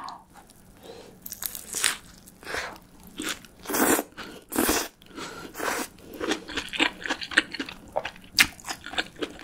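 A person biting into a hamburger (a mushroom bulgogi Whopper) and chewing it close to the microphone. The chewing comes as irregular crunches that get quicker in the second half.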